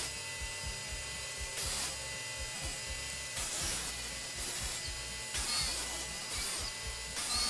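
Axminster AT406DS drum sander running with its dust extractor while a rough cherry board feeds through under the sanding drum. There is a steady hum, and a hissing sanding sound swells up about every two seconds.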